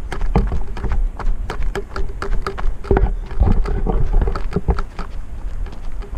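Footsteps of runners on a mountain trail, a quick, uneven series of crunches and clicks, with wind rumbling on the microphone.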